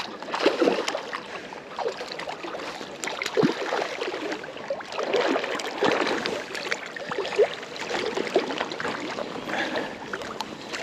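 Irregular splashing and sloshing of water while a hooked rainbow trout is played on a fly rod.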